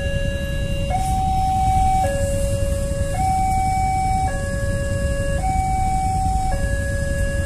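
Railway level crossing's electronic warning alarm sounding a steady two-tone hi-lo, each note held about a second, the signal that a train is approaching and the barriers are closed. Idling road traffic rumbles underneath.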